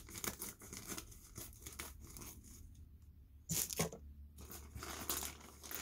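Clear plastic packaging bag crinkling and tearing as it is handled and pulled open by hand. There is a louder burst of crackle about three and a half seconds in.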